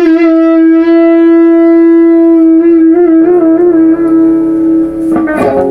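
Electric guitar holding one long sustained lead note, which starts to waver with vibrato about two and a half seconds in; a lower note joins, and a quick burst of picked notes comes near the end.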